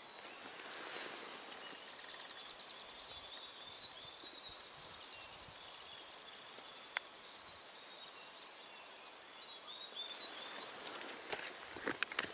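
Outdoor ambience with a high, rapidly pulsing wildlife trill that runs for about ten seconds and then fades. There is one sharp click about seven seconds in, and a run of clicks and rustling near the end.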